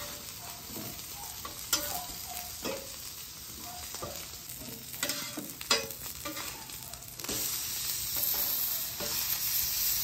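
Halved baby potatoes sizzling on a hot flat-top griddle while a metal spatula scrapes and taps the steel, several sharp strokes in the first six seconds. About seven seconds in the sizzle turns louder and steadier, with steaks searing on the griddle.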